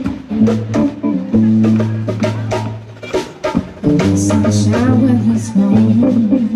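Live jazz band playing: drum kit with sharp snare and rimshot strokes, a low bass line, and sustained keyboard and guitar chords. A woman starts singing into the microphone about four seconds in.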